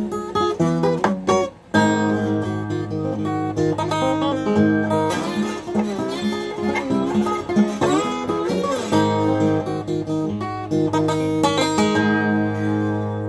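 1971 Guild D-35 dreadnought acoustic guitar in open G tuning played with a steel slide: strummed chords and picked notes, with wavering slid notes in the middle. It ends on a full strummed chord left ringing.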